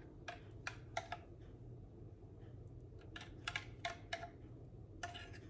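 Irregular light clicks and taps of a kitchen utensil against a plastic measuring cup as thick custard is scraped and poured out, over a low steady hum.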